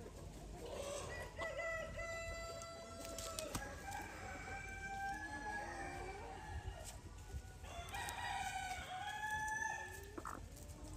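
Several Ayam Cemani roosters crowing, long held crows at different pitches overlapping one another in three bouts.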